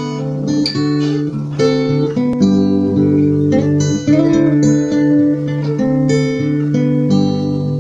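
Acoustic guitar music playing, a steady run of picked notes and chords.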